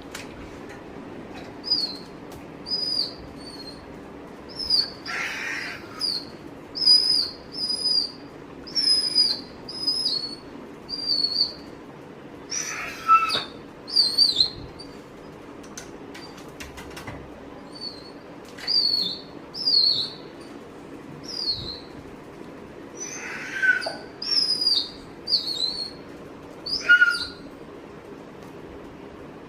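Doberman whining in short, high-pitched squeaks, one after another with brief pauses, eager while waiting for its owner to come home. A few squeaks come with a breathy huff.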